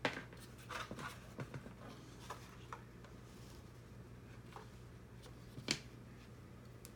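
Scattered light clicks and taps of robot kit parts being handled and fitted together: a cluster about a second in and a sharper click near the end.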